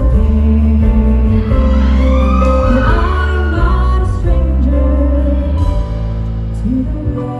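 Live music: a woman singing a song over a band with a heavy bass.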